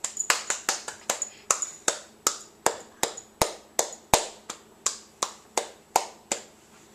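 A steady run of sharp clicks or snaps, about three a second, stopping a little before the end.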